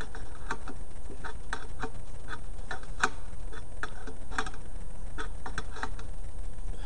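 Metal wrench clicking and ticking on a brass air fitting as it is tightened into an air compressor port: a string of light, irregular ticks, about three a second, over a steady low hum.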